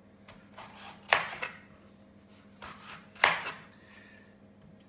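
Chef's knife slicing a red capsicum (bell pepper) on a plastic chopping board: a few cuts, with two sharp knocks of the blade on the board about a second in and just after three seconds.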